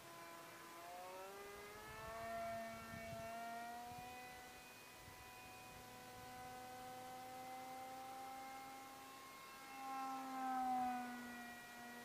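RC model jet airplane's motor whining in flight. The pitch rises at first and then holds steady. About ten seconds in the whine swells and drops in pitch as the plane passes close, then fades near the end.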